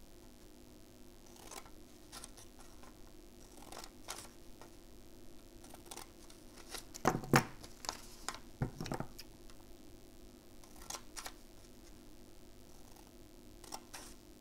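Scissors making quiet, scattered snips through folded paper, with paper rustling as it is handled; about seven seconds in, a louder brief clatter, as of the scissors being set down on the wooden table.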